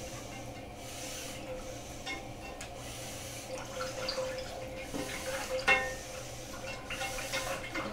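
A whisk stirring homemade barbecue sauce in a metal saucepan: soft sloshing and scraping, with a sharp metallic clink against the pot about two-thirds of the way through. A faint steady hum lies underneath.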